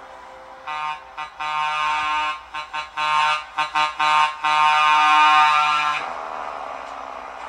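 Truck air horn honking in a series of blasts: two short toots, then long blasts broken up by quick short ones, stopping about six seconds in.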